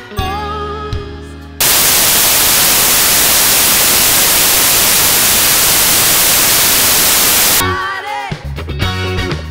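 Live band music with a held sung note, cut off about a second and a half in by a loud, even static hiss that covers everything for about six seconds. The band music returns near the end.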